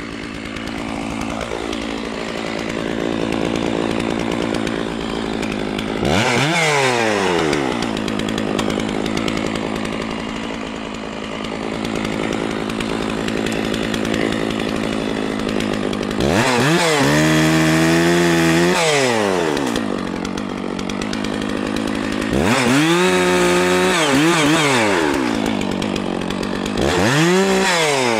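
Stihl MS660 two-stroke chainsaw idling, then revved up four times as it cuts into tree limbs. Each time the pitch rises and falls back to idle, and the longest burst, about halfway through, holds for about three seconds.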